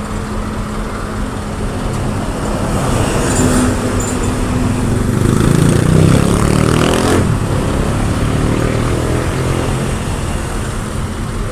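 Heavy diesel engine running steadily, revving up about halfway through and dropping back just after.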